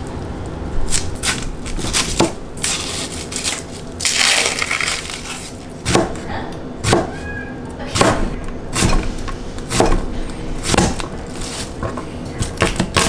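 Chef's knife chopping an onion and then garlic cloves on a plastic cutting board: irregular sharp knocks of the blade striking the board, with a brief rustle about four seconds in.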